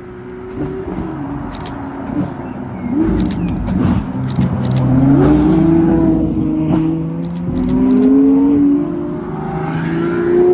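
Supercar engines revving and accelerating, the engine note rising and falling several times. Loud.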